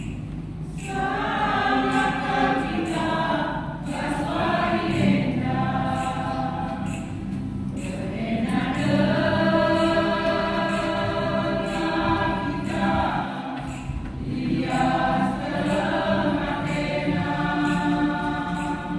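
Church choir singing a hymn in long phrases with held notes, pausing briefly between phrases.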